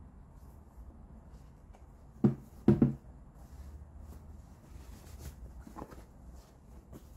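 Sneaker handling during an unboxing: a quick cluster of dull thumps about two and a half seconds in as the shoe is knocked down onto the cardboard shoebox, with soft rustling of the cotton dust bag around it.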